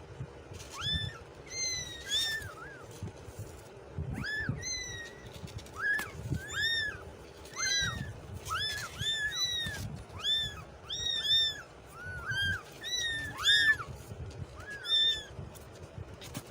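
Kittens meowing: a quick string of short, high-pitched mews, one or two a second, sometimes overlapping, over low rumbling noise.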